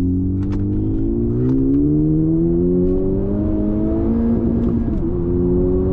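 Honda Civic Type R (FK8) turbocharged four-cylinder engine pulling under acceleration, its pitch rising steadily for about four seconds, then dropping at a gear change and holding steady.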